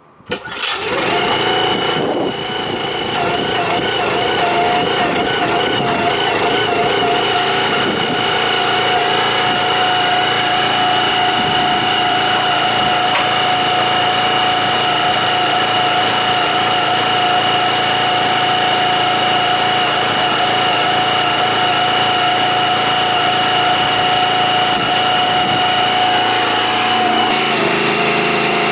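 Small petrol engine of a cable drum trailer's hydraulic power pack starting up suddenly just after the start, then running steadily with a constant whine. Near the end the note drops and deepens as the hydraulic control valve is worked, putting the pump under load.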